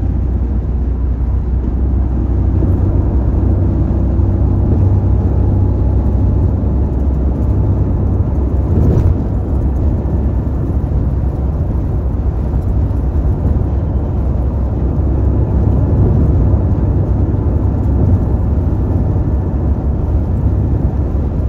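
Car driving at highway speed: a steady low rumble of tyre and engine noise, with a brief swell about nine seconds in.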